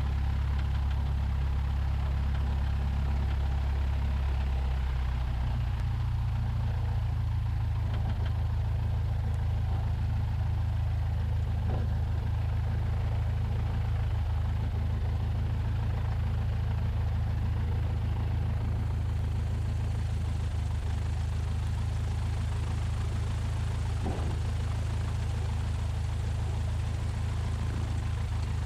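A 1969 Cessna 172's four-cylinder Lycoming O-320 engine and propeller running steadily at low taxi power, a deep drone. The pitch of the drone shifts slightly about five seconds in, as the power setting changes.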